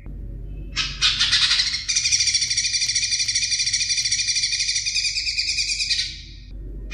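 A songbird singing one long, fast trill of about five seconds, starting about a second in and stopping shortly before the end. It is tutor song of the kind played to train caged greater green leafbirds.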